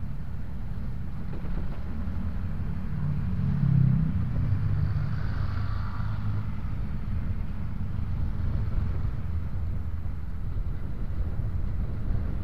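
Honda Scoopy 110 scooter's small single-cylinder engine running while under way, under steady low wind and road rumble on the helmet microphone. Another motorcycle passing close alongside swells louder about four seconds in.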